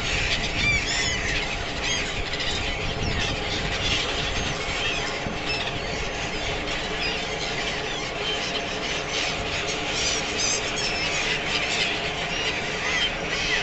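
A large flock of gulls calling continuously, many short, high, overlapping calls. A steady low hum runs underneath.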